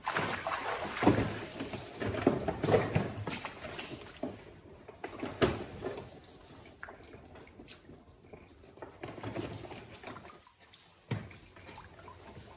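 Water in a small pool splashing and trickling in irregular bursts as a monkey plays at the water's edge, busiest and loudest over the first few seconds, then fainter.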